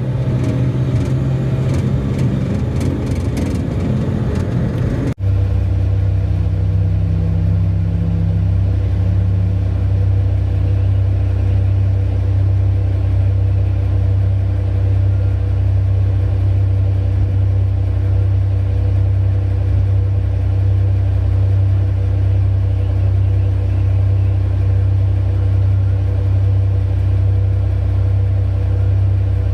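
Heavy diesel engines of a mining excavator and haul truck running with a deep, steady drone. About five seconds in the sound changes abruptly from a noisier, clattering texture to a smoother low drone.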